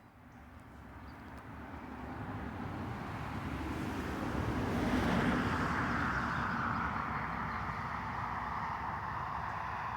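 A vehicle passing by: a rushing noise that builds to its loudest about five seconds in, then fades slowly, its pitch dropping slightly as it moves away.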